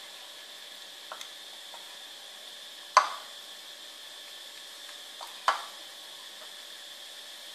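Two sharp knocks of a small food bowl against a tiled floor as two kittens jostle while eating from it, about three seconds in and again about two and a half seconds later, each with a brief ringing tail. Lighter clicks of the kittens eating come between them, over a steady faint high hiss.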